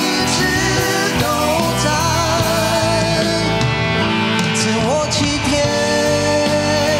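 Two male rock singers take turns singing a slow rock song into microphones, with held, wavering notes, over a rock band accompaniment with electric guitar.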